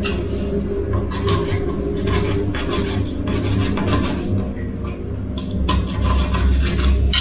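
Thin filleting knife scraping and slicing through a golden pomfret in a run of short, uneven strokes as the blade is drawn along the fish.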